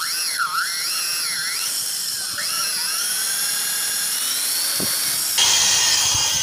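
Electric hand drill whining as a 5.0 mm bit cuts into a coil glued into a bolt hole in a motorcycle engine's aluminium cylinder head. The pitch wavers under load for the first few seconds, then steadies, and the sound gets louder about five seconds in.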